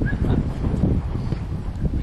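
Wind buffeting the camera's microphone, a low, gusting noise.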